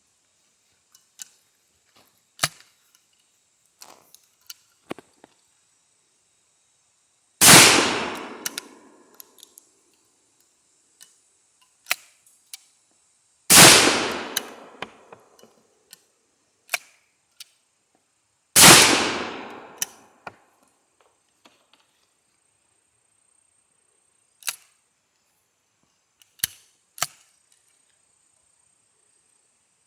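Three shots from a New England Firearms Pardner .410 single-shot break-action shotgun, about five to six seconds apart, each ringing off over a second or so. Smaller sharp clicks come before, between and after the shots.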